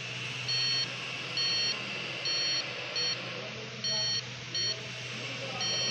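Handheld power-probe circuit tester beeping in short, irregular pitched beeps, about seven of them, as its tip is touched to fuse contacts in the engine-bay fuse box. Its display reads 12.5 V, so the fuses are live. A steady low hum runs underneath.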